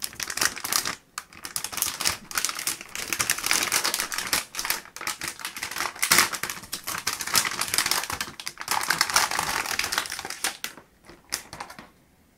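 Metallised anti-static bag crinkling and crackling as it is handled and a graphics card is slid out of it, a dense run of fine crackles that thins to a few scattered clicks and stops near the end.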